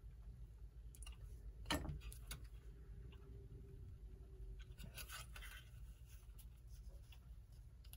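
Faint clicks and scraping of tools working at a clock's hour hand, which is stuck tight on its stem. One sharp click comes just under two seconds in, and a cluster of small clicks and rubbing about five seconds in.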